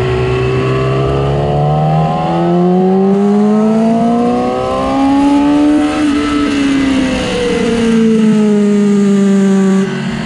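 2006 Yamaha R6's inline-four engine at full race revs on track. It rises in pitch for about six seconds as the bike accelerates, falls as it slows, then holds steady, with a brief cut in level near the end.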